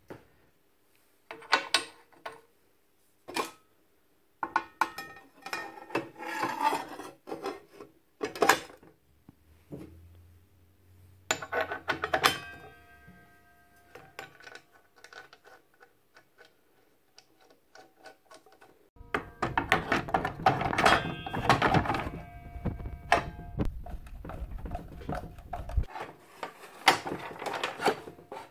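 Metal parts of a miter saw gearbox being handled and fitted: scattered clinks, taps and knocks, some with a short metallic ring. About two-thirds of the way through comes a longer spell of continuous clatter that stops abruptly.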